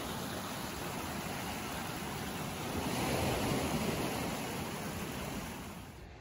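Small ocean waves breaking and washing up a sandy beach: a steady surf hiss that swells louder about three seconds in as a wave runs up the shore, then drops away near the end.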